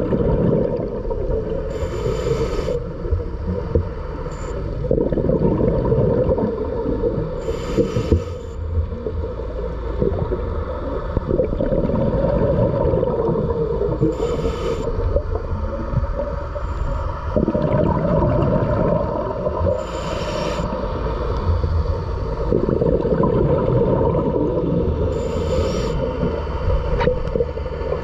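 Scuba diver breathing through a regulator underwater: a short hiss of inhalation about every six seconds, five times in all, each followed by a long stretch of bubbling from the exhaled air.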